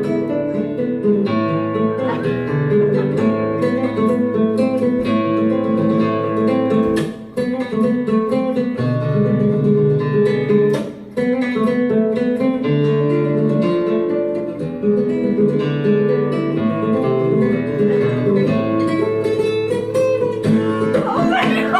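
Acoustic guitar music, strummed chords, with two short breaks about 7 and 11 seconds in.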